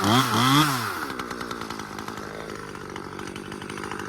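Husqvarna T540XP Mark III top-handle two-stroke chainsaw revved twice in quick succession, its pitch rising and falling each time, then dropping back to a steady idle.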